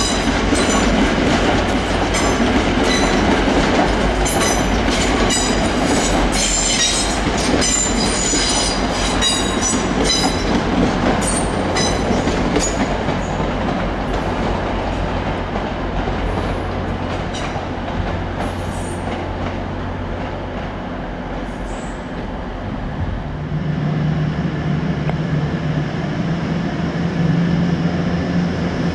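Class 185 diesel multiple unit running slowly past, its wheels squealing and clattering over the points for the first dozen seconds. From about 23 s this gives way to the steady low drone of a Grand Central Class 180 diesel unit's engines as it arrives.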